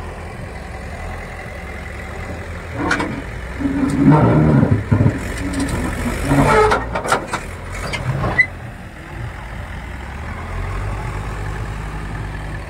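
Tata backhoe loader's diesel engine working hard under load as it pushes a trolley stuck in mud. The engine gets louder and more uneven from about three seconds in, with a few sharp knocks around the middle, then settles back to a steady run.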